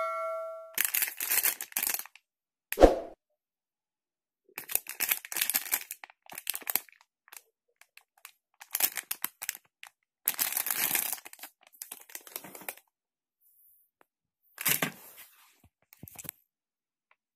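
Plastic packaging crinkling in irregular bursts as hands handle a comb sealed in its clear bag. There is one dull thump about three seconds in.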